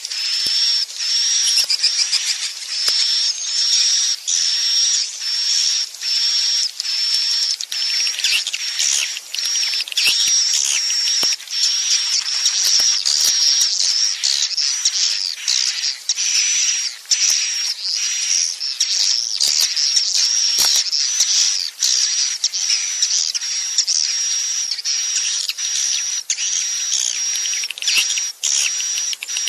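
A swiftlet roosting-call lure recording: a dense, high-pitched twittering chatter of edible-nest swiftlets, running in quick phrases broken by brief gaps. It is the 'inap' call played in swiftlet houses to make young swiftlets settle and roost.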